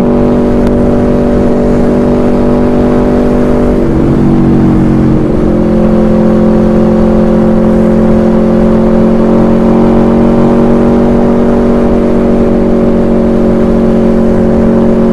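Aprilia V4 motorcycle engine at steady cruising revs, with wind rush on the onboard microphone; about four seconds in the engine note dips and shifts, as with a gear change or a roll of the throttle, then holds steady again.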